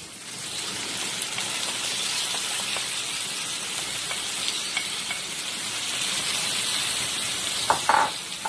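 Sliced bitter gourd hitting hot oil in a non-stick wok and sizzling with a steady hiss, which swells just after the start as the vegetables land in the pan. A few sharp clinks near the end.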